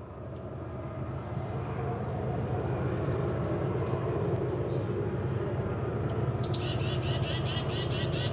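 A steady low outdoor rumble, with a bird calling from about six seconds in: a fast run of repeated high chirps, about five a second.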